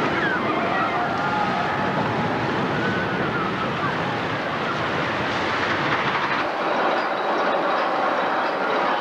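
Steel roller coaster train running along its track: a steady rumbling rush with high wavering squeals over it during the first few seconds, picked up by a camcorder's built-in microphone amid general park noise.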